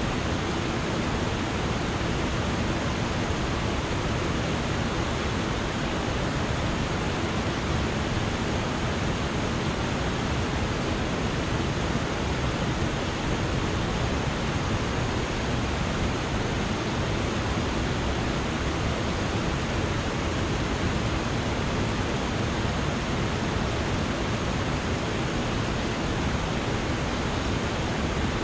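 Water spilling over a low concrete mill dam: a steady, unbroken rush of white water.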